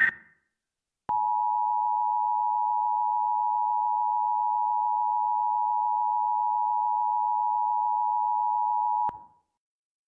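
Emergency Alert System attention signal: the steady two-tone alert of 853 and 960 Hz sounded together, held for about eight seconds and then cut off. Right at the start, the tail of the screeching digital header burst.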